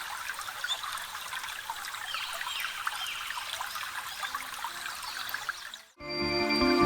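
Water trickling steadily, with short high chirps from small birds over it. Both cut off about six seconds in and music takes over.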